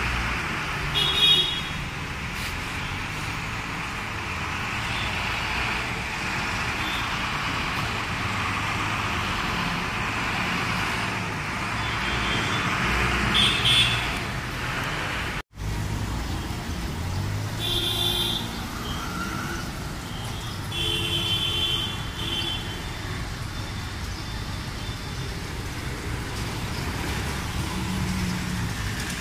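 City street traffic: a steady hum of passing vehicles, with short vehicle-horn toots several times.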